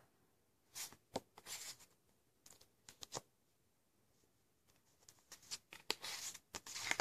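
Playing cards being slid and rearranged by hand: faint scattered snaps and rustles, coming more often in the last couple of seconds.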